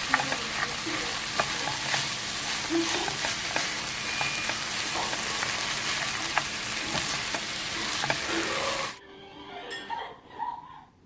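Shrimp fried rice sizzling in a hot pan as it is stir-fried, with sharp clicks of a spatula against the pan. The sizzle cuts off abruptly about two seconds before the end, leaving quieter music.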